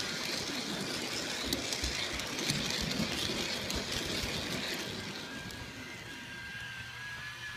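G scale model train running along plastic track, heard up close from on board: a steady rushing of the wheels on the rails with scattered clicks and a faint electric motor whine. It gets somewhat quieter about five seconds in.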